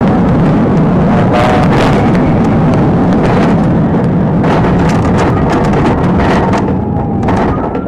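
Loud, steady rush of engine, tyre and wind noise inside a police cruiser driving fast in pursuit, with scattered knocks and rattles.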